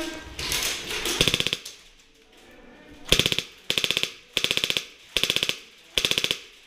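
Airsoft gun firing short full-auto bursts: six quick rattles of rapid clicks, about half a second each, one about a second in and five more in quick succession from about three seconds on.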